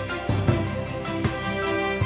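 Background music with a steady beat about every three quarters of a second, played over the closing card.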